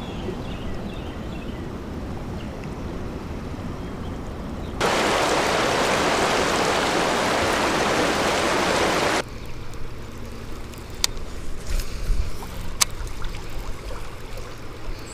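Flowing river water: a steady wash, with a much louder stretch of rushing water for about four seconds in the middle that starts and stops abruptly. A few sharp clicks follow near the end.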